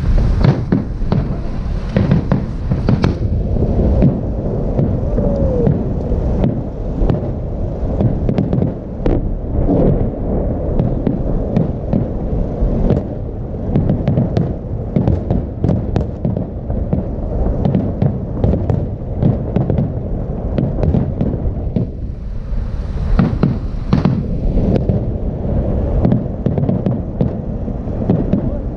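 Aerial fireworks shells bursting in rapid, overlapping bangs and crackles over a continuous low rumble. The bursts thin out briefly about three-quarters of the way through, then pick up again.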